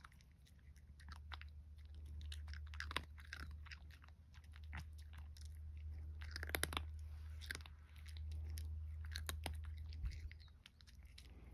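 A cat crunching dry kibble eaten from a person's palm: faint, irregular crunches and clicks of chewing.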